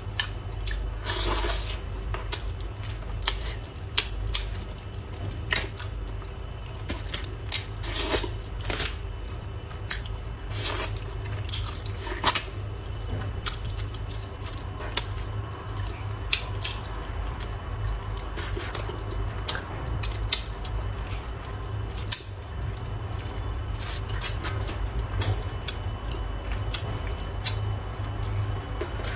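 Close-up eating sounds of spicy noodles: many short wet mouth clicks and chewing, with a few longer slurps. A steady low hum runs underneath.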